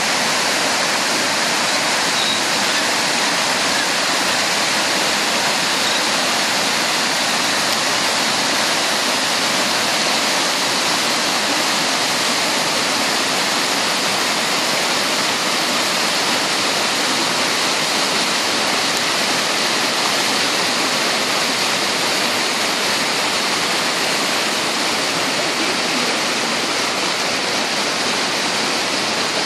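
A mountain river rushing over rocks in rapids and a small waterfall: a steady, even rush of water.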